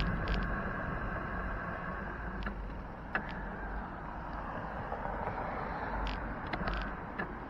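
Street traffic and road noise heard from a moving bicycle: car engine and tyre noise, loudest at the start and easing off, with a few sharp clicks or rattles, the sharpest about three seconds in.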